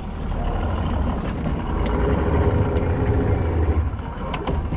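Engine running steadily with a low rumble.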